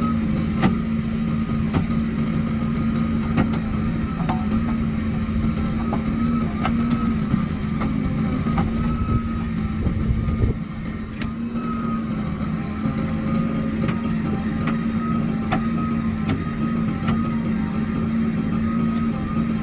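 Heavy diesel machinery engine running steadily under load, with a sharp tick repeating about once a second. The low rumble drops back about halfway through.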